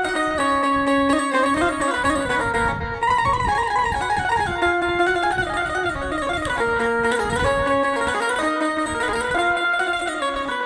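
Banjo played to show its tone: a melody of plucked notes that ring on and change every fraction of a second, a few wavering in pitch.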